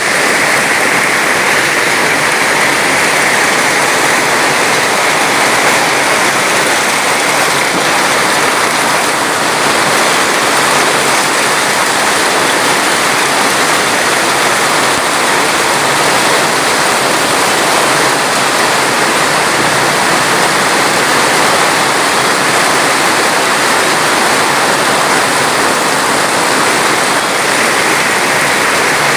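Steady rushing water, a loud, even hiss without breaks or single drops standing out.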